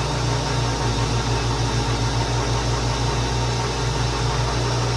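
Big metal lathe running steadily with a low, rapidly fluttering hum, while taking a light pass of a few thousandths on a small bushing.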